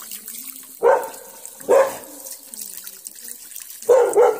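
Water running from a newly fitted washbasin pillar tap over hands being rinsed in the basin, a steady splashing hiss. Four short, loud calls cut across it, one about a second in, another just under a second later, and a quick pair near the end.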